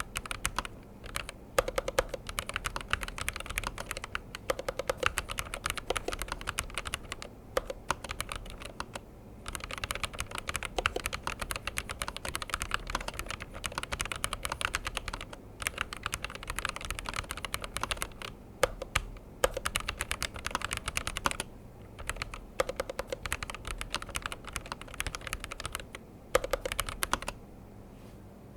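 Typing on a Razer BlackWidow V4 Low Profile HyperSpeed low-profile mechanical keyboard: fast runs of key clicks with brief pauses between them and a few heavier, deeper key strokes mixed in. The typing stops near the end.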